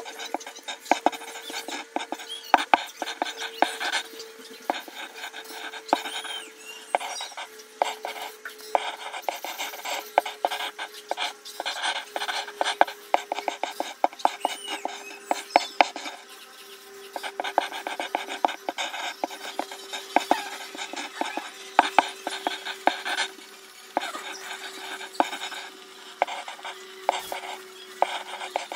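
Colored pencil scratching back and forth on paper in quick, uneven shading strokes, with a short lull about two-thirds of the way through.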